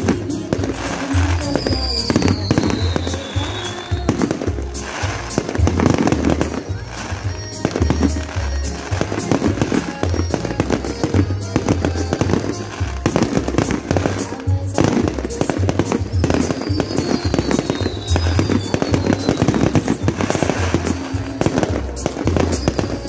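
Fireworks bursting and crackling in a dense, continuous barrage over loud music with a steady bass beat. A high falling whistle comes through near the start and again later.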